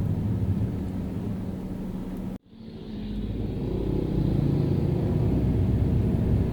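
Car driving in city traffic: a steady low road and engine rumble. About two and a half seconds in it cuts out abruptly, then fades back in over about a second to the same rumble.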